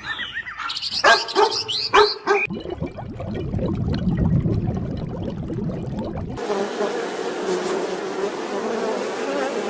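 A dog barking a few times in short, sharp calls. After a cut, a steady hum and then an even buzzing of flying insects.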